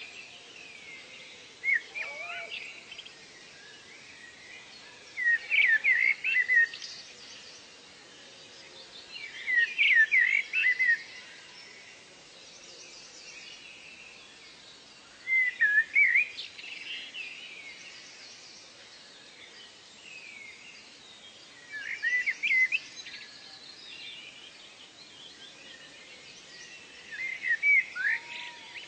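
A songbird singing short phrases of quick, sweeping chirps, repeated six times at intervals of about four to six seconds, over a faint background of distant birdsong.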